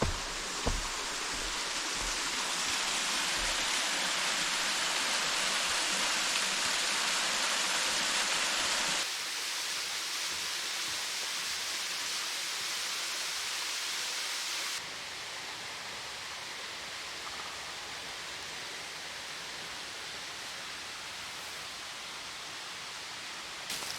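Steady rush of water from a mountain stream or waterfall. It drops abruptly in level twice, about nine and fifteen seconds in.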